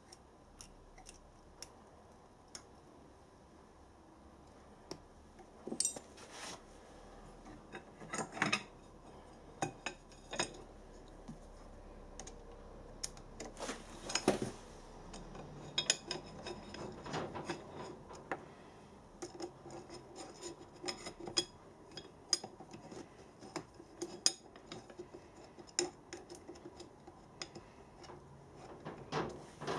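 Aluminium DRO scale and bracket being handled and fitted against a mini mill's metal table: scattered metallic clicks, clinks and light knocks, few at first and more frequent after about six seconds.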